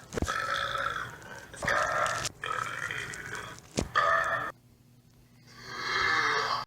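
Male belching: a run of separate burps, several in a row, then a pause of about a second before a last long one swells up near the end. These are burps after downing shots of liquor.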